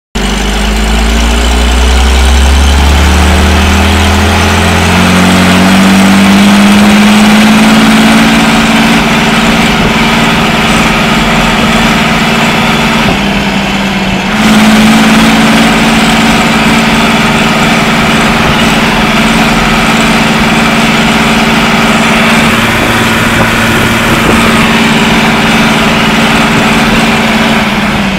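Fendt 311 LSA Turbomatik tractor engine running under way. The revs climb over the first few seconds, dip briefly about halfway through, then pick up again and hold steady.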